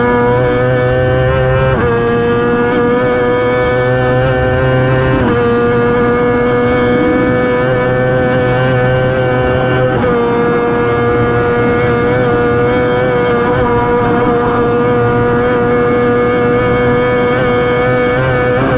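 The 600cc four-stroke engine of a TT racing sidecar running flat out at high revs. Its pitch holds nearly steady, with short drops at gear changes about two, five and ten seconds in, over rushing wind.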